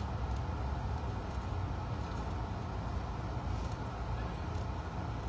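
Steady low drone and hiss of airliner cabin noise, an engine and airflow rumble that holds level throughout.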